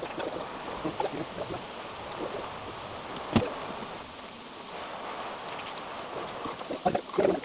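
Knocks and clatter of e-bike parts being handled during assembly: one sharp knock about three and a half seconds in and a burst of clattering near the end, over a steady background hiss.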